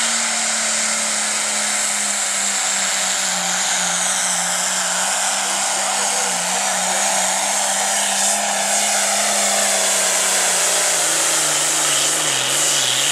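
Turbocharged diesel engine of an International Harvester pulling tractor running flat out under full load, with a steady drone and a high-pitched whine over it. Near the end the engine note sags and wavers as the sled's weight bogs the tractor down.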